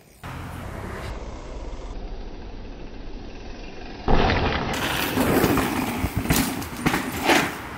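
Low steady outdoor rumble, then from about four seconds in a mountain bike rides past close by: knobby tyres crunching and skidding over the dirt trail, with several sharp scrapes near the end.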